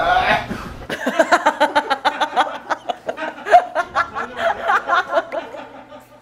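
A short, garbled vocal cry from someone reacting to extreme chilli heat, then about five seconds of a woman's loud, hearty laughter.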